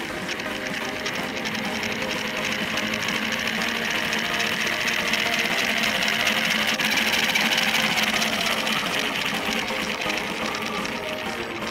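Small DC motor, run from a 9-volt battery held to its terminals, whirring as it spins a large steel ball bearing through a plastic pulley. The whir builds to its loudest about two-thirds of the way in, then eases off near the end once the battery is taken away.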